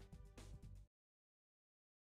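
Background music with a steady beat that cuts off suddenly about a second in.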